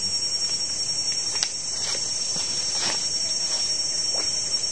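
Steady, high-pitched drone of a forest insect chorus, with a few faint clicks and rustles as the angler handles things at the water's edge.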